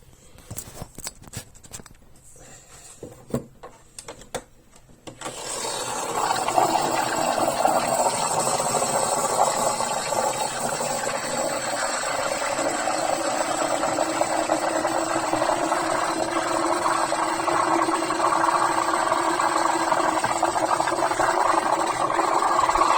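Espresso machine steam wand foaming milk: after a few faint clicks, a steady loud hiss starts about five seconds in and grows slightly louder as the milk heats.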